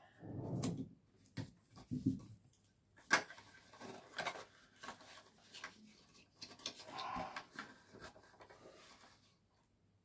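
Faint handling noises: scattered clicks, soft knocks and rubbing as an LED bulb, a cardboard box and a test cable are moved and set in place, with a sharper click about three seconds in.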